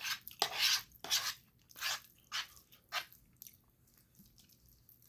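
Close-up chewing of spicy instant noodles: a run of short, wet mouth noises about every half second that fade out a little after halfway.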